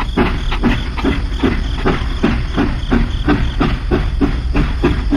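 Toy steam locomotive running on its track with its steam-engine chuffing sound, about three even chuffs a second over a steady low hum.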